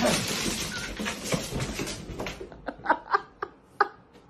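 A sudden loud noise and a scramble as startled house cats leap up and scatter across a wooden floor, lasting about two and a half seconds, then a few short, sharp sounds.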